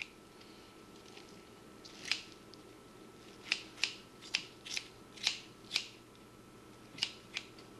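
Sharp scissors snipping through raw pancreas, about ten quick irregular cuts, most of them bunched in the middle.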